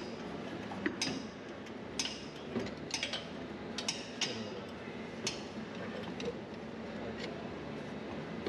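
About a dozen sharp metallic clinks and taps at irregular intervals, from hand tools and steel parts being worked while trying to get a race car's drive shaft out, over a steady background hum.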